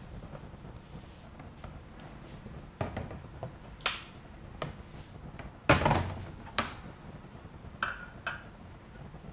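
Sharp clicks and knocks of printed plastic parts being removed from a PEI 3D-printer build plate, with the plate and parts knocking against a wooden workbench. There are about seven separate knocks, the loudest just past halfway.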